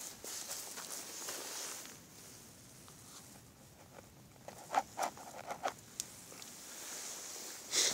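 Footsteps on dry leaves and twigs: soft rustling, then a quick cluster of sharp crackles about five seconds in, and another rustle near the end.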